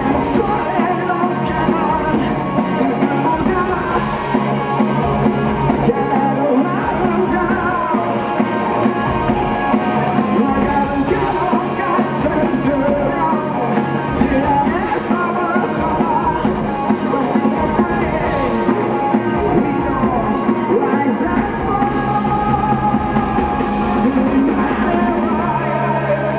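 Live rock band playing, with electric guitar, drum kit and a singer.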